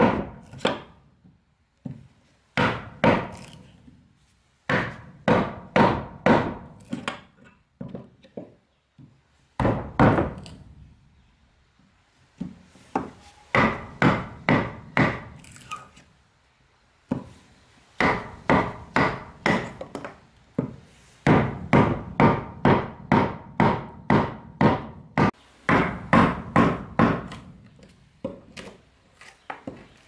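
Hammer blows on wood, in quick runs of about three strikes a second with short pauses between the runs.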